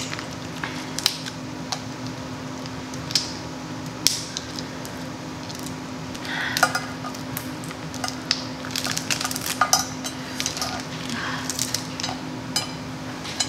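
Crab legs being eaten: shells cracking and snapping in irregular sharp clicks, with wet chewing and smacking, over a steady low hum.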